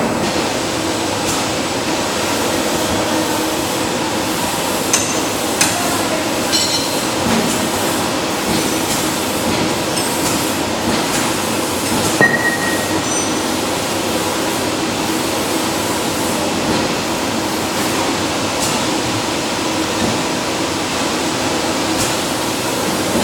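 Cross shaft mechanical power press running, with a steady machine hum from its drive. Occasional short, sharp metallic clicks and knocks come through, a few around five to seven seconds in and the loudest about twelve seconds in.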